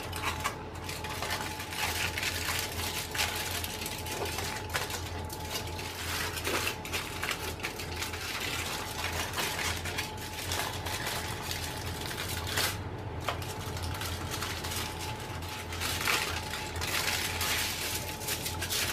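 Aluminium foil crinkling and rustling in irregular crackles as hands roll it tightly around a soft sheet of sweet dough and peel it back, over a low steady hum.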